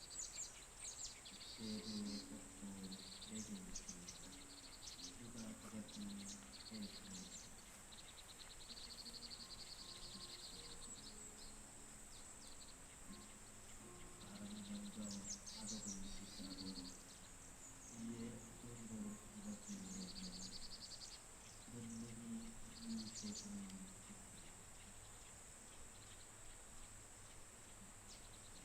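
Faint Buddhist prayer chanting by a voice in short phrases with pauses. Birds chirp and trill over it, and a steady high insect drone runs underneath.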